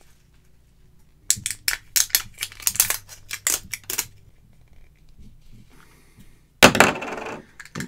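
Sharp crackles and clicks of the foil wrap on a plastic surprise egg being cut and peeled away, then a louder burst of plastic crackling near the end.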